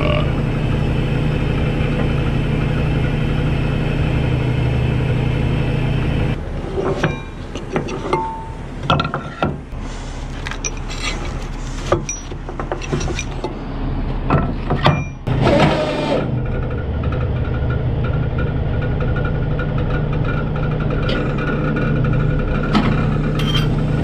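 Semi truck's diesel engine idling steadily, with a run of sharp knocks and clanks in the middle.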